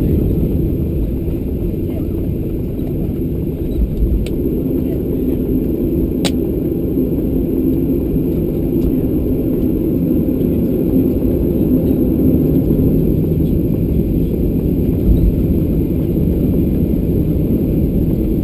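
Cabin noise of a Boeing 737-800 rolling out after landing: a steady low rumble of its CFM56 engines and wheels on the runway as the jet slows and turns off. A single sharp click comes about six seconds in.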